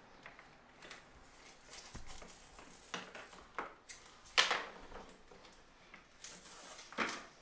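Handling noise from a strip of vinyl window trim being fitted and pressed into place: scattered sharp plastic taps and rustles, the two loudest about halfway through and near the end.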